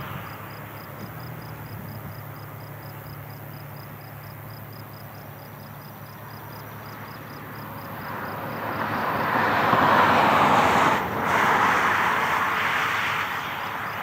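A vehicle passing by: a broad rush of engine and tyre noise builds over several seconds, peaks, dips briefly and then eases off, over a steady low hum. A faint high chirp repeats evenly about three times a second.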